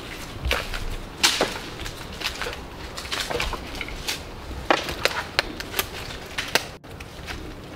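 Footsteps crunching over dry debris, with irregular sharp cracks and snaps a few times a second.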